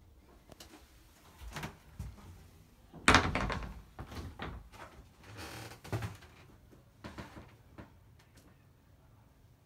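A door on a yacht's interior being handled: a loud knock as it shuts about three seconds in, with several smaller knocks, a short scrape and some clatter around it.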